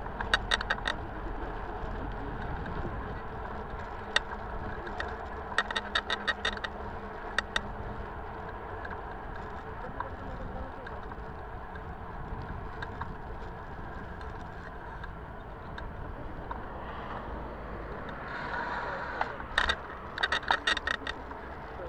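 A bicycle being ridden, heard from a camera on its front fork: a steady low rumble of tyres and wind, broken a few times by short bursts of rapid clicking and rattling from the bike, the longest about a second long near the end while crossing a road.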